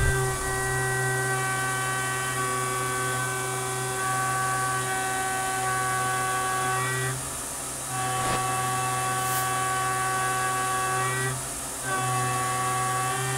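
Tormach 770 CNC mill spindle running a 1/2-inch solid carbide end mill at 8000 rpm, roughing around the outside of an aluminium block: a steady multi-tone whine from the cut. It dips briefly twice, about seven and eleven seconds in, and a single click comes about eight seconds in.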